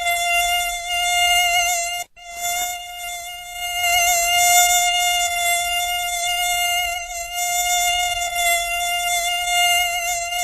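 Mosquito's high whine from its beating wings: a steady, slightly wavering buzzing tone that breaks off for a moment about two seconds in.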